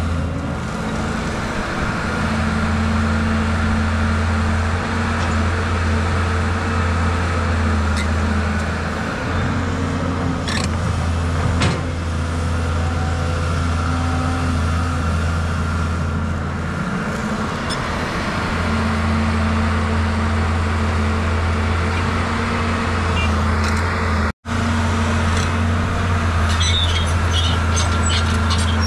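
Caterpillar 320 hydraulic excavator's diesel engine running under working load while it digs and loads a dump truck, a steady low drone that eases off and picks up again a few times. A few sharp clicks and knocks about a third of the way in, and the sound drops out for an instant about three-quarters of the way through.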